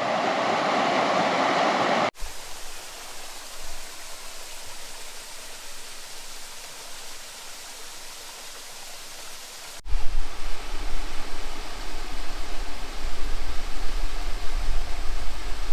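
Steady rushing of a stream and its cascades, in three stretches cut together, the middle one quieter. About ten seconds in, a louder, uneven low rumble joins the water noise.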